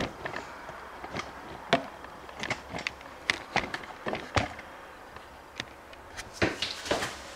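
Irregular light clicks and knocks of hands handling the fridge's plastic interior panels and covers, about a dozen in all, with a louder knock about four and a half seconds in.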